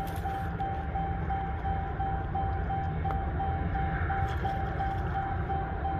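A vehicle's door-open warning chime beeping steadily, about four evenly spaced beeps a second of one unchanging tone, over a low steady rumble.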